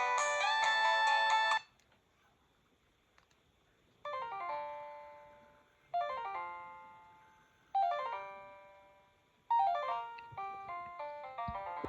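Corise KS728 mobile phone playing its ringtones: a multi-note polyphonic ringtone cuts off about a second and a half in. After a short pause another ringtone begins, a falling run of notes that die away, repeated every couple of seconds and quickening near the end.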